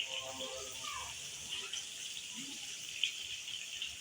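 Masala-marinated fish sizzling steadily in hot oil as it fries, with small crackles.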